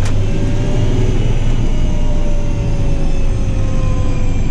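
John Deere 8520 tractor running along the road under steady load, its six-cylinder diesel giving a continuous low drone with a whine that slowly sinks in pitch. A short click at the very start.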